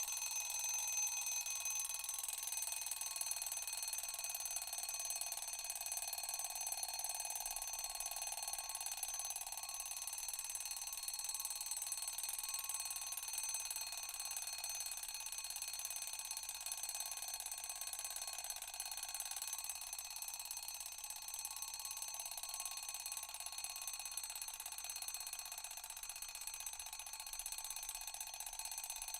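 Classic mechanical table alarm clock ringing without a break, its bell giving a steady, bright ring of several high tones, easing off slightly near the end.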